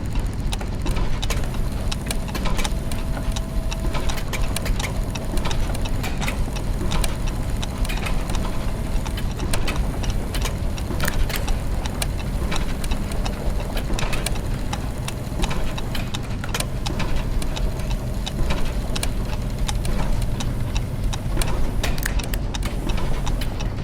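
Clockwork and gear machinery: many irregular ticks and clicks over a steady low mechanical hum. A faint high tone is held for several seconds from about a second in.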